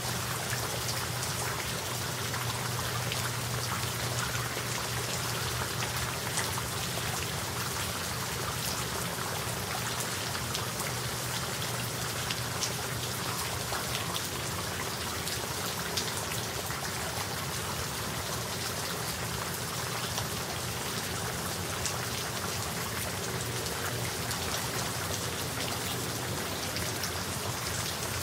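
Steady light rain shower, with many separate drops pattering on surfaces.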